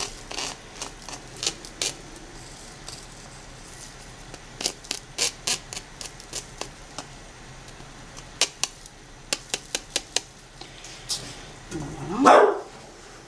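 Wooden spatula scraping and tapping against a metal mesh strainer and bowl as steamed couscous is knocked off, a string of short sharp taps. Near the end a dog gives one loud yelp that rises in pitch.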